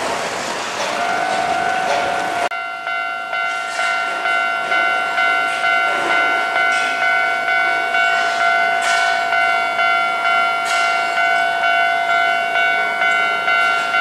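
Japanese railway level-crossing alarm ringing its repeated electronic ding, a little under two strikes a second, warning of an approaching train. For the first couple of seconds it sounds over a broad rushing noise that cuts off abruptly about two and a half seconds in.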